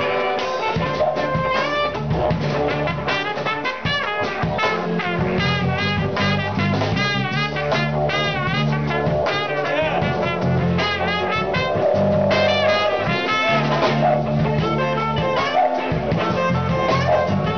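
Live didgeridoo-and-horn music: a didgeridoo drones in a steady pulsing rhythm underneath while a trumpet and saxophones play fast, wavering lines over it.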